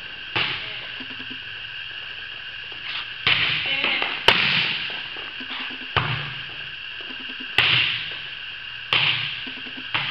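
Volleyball being passed and hit back and forth, a sharp smack every one to two seconds, about seven in all, each echoing in a large metal building. A steady hum runs underneath.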